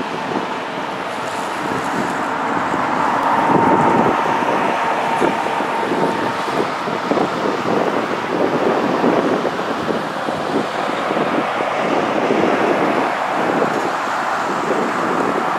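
Jet noise from an Airbus A320-232 on final approach, its two IAE V2500 turbofans at approach power. It grows louder over the first few seconds, then holds steady, with a faint high whine for a few seconds. Wind buffets the microphone.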